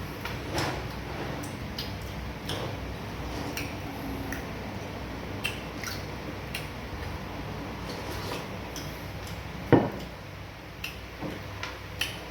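Close-miked eating of fufu and banga soup: scattered small clicks and smacks of chewing and handling the food, with one louder knock about ten seconds in.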